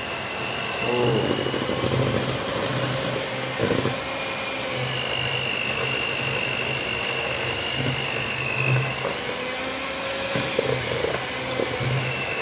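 Cosmos electric hand mixer running steadily, its beaters churning thick raw fish paste for tekwan in a plastic bowl, with a steady high motor whine and a few short knocks.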